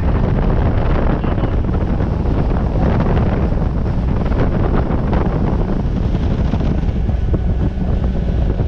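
Strong wind buffeting the microphone on a small boat under way, a loud, steady rumble with water and hull noise beneath it.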